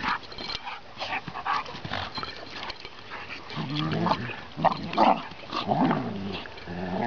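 Chocolate Labrador puppy growling during rough play-fighting with a bigger dog, in a run of pitched, wavering growls mostly in the second half. Short clicks and scuffles come between them.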